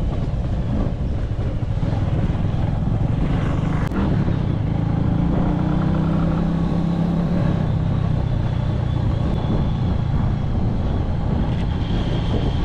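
Motorbike engine running at riding speed over steady road and wind noise; the engine note grows stronger for a couple of seconds around the middle, then settles back.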